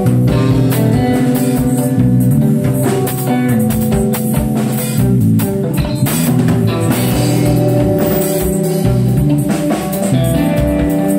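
A three-piece electro-alternative rock band playing live: electric guitar and bass over a busy drum kit that plays many quick hits.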